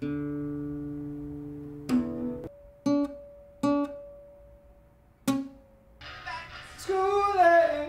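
Nylon-string classical guitar: a chord rings out, then four more plucked notes or chords follow at uneven gaps, each fading away. About six seconds in, a fuller stretch of music comes in, carrying a wavering, bending melody line.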